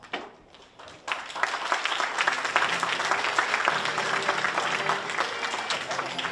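Audience applauding, starting sharply about a second in as many quick claps blended together.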